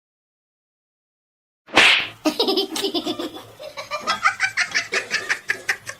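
Silence for nearly two seconds, then a sharp burst of breath and a person laughing in quick repeated pulses.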